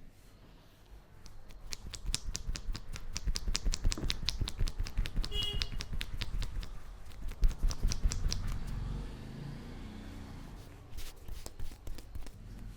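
Hands rapidly tapping and slapping on a head in a head massage, sharp claps several times a second that fade into softer rubbing after about nine seconds.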